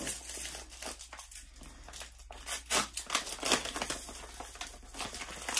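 A plastic mailer envelope being opened, crinkling and rustling in irregular scratchy strokes, with the odd tearing sound.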